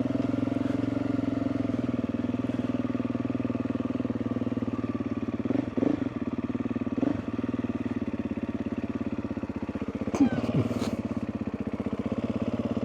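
Motorcycle engine running steadily at an even pitch, with a few brief gliding sounds over it about halfway through and near the end.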